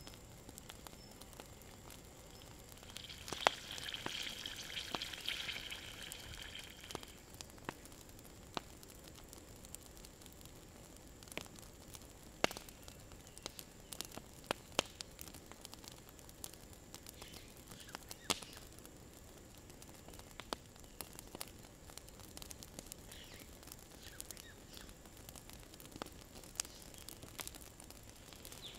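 Wood campfire crackling, with scattered sharp snaps and pops. About three seconds in there is a brief sizzling hiss that lasts a few seconds.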